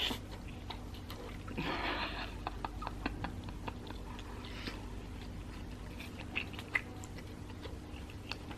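Close-miked chewing of fried sticky rice and pork ribs: many small wet mouth clicks. A short breathy burst comes about two seconds in.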